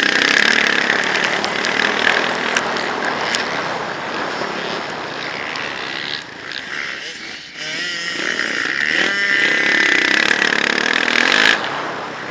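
Motocross bike engine revving hard under load as it is ridden, heard from a helmet-mounted camera. About seven seconds in the revs drop briefly and then climb again, and near the end the revs fall away sharply.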